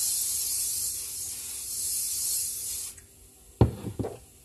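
Aerosol cooking spray hissing steadily as it greases silicone cupcake moulds, cutting off about three seconds in. Two sharp knocks follow near the end.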